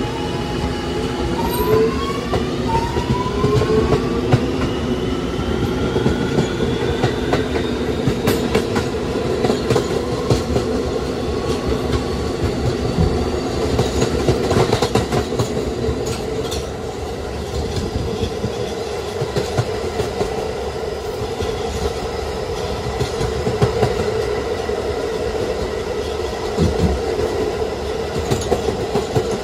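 NYC Subway R211A car's Alstom OptONIX IGBT-VVVF propulsion accelerating away from a station: the inverter whine climbs in pitch through several steps over the first several seconds. The train then runs at speed with a steady rumble of wheels on rail and a scattering of clicks.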